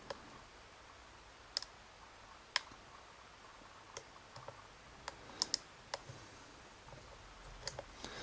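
A lock pick working the pins inside a Bricard Mistral S cylinder. It makes faint, irregular small clicks as the pins are probed and set, with a few close together about five seconds in.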